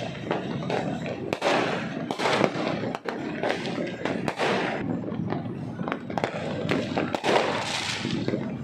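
Fireworks going off continuously: a dense run of sharp pops and crackles, with louder bangs every second or two.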